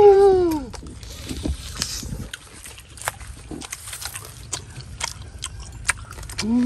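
Mouth sounds of people eating roast duck with their hands: an "mmm" of enjoyment that rises and falls at the start, then many sharp crunchy clicks and smacks of chewing and of meat and skin being torn apart.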